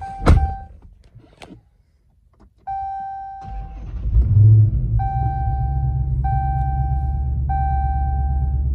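A loud thump near the start, then the 2016 Dodge Charger SRT Hellcat's supercharged 6.2-litre V8 is push-button started: it cranks and catches about three and a half seconds in, flares briefly, then settles into a steady, deep idle. A dashboard warning chime sounds over the idle, repeating about once every second and a quarter.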